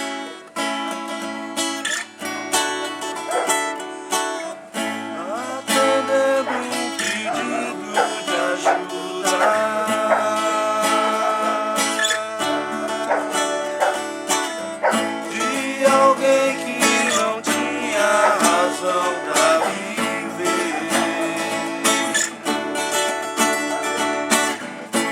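Acoustic guitar music playing an instrumental introduction with other plucked strings.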